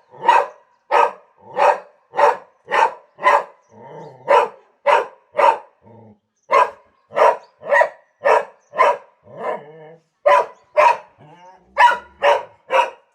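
Dog barking over and over, about two barks a second, with a few brief breaks between runs.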